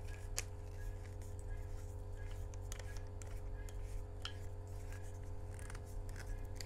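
Scattered light plastic clicks and taps as a mini tripod is screwed onto the handle of a Zhiyun Smooth 4 phone gimbal, over a steady low hum.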